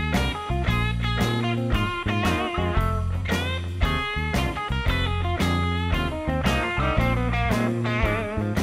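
Background instrumental music led by guitar, a run of plucked notes, some wavering in pitch, over a steady bass line.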